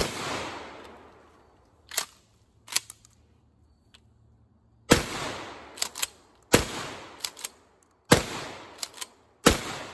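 Five shots from a 12-gauge pump-action shotgun firing target loads, each followed by a short echoing tail. A long pause after the first shot, then the last four come about a second and a half apart, with the clack of the pump being worked between shots.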